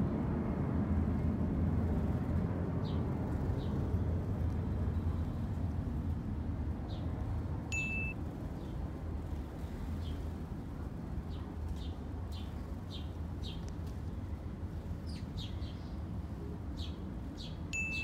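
House sparrows chirping in short, scattered chirps, more often in the second half, over a steady low background rumble. A short high beep sounds twice, about ten seconds apart.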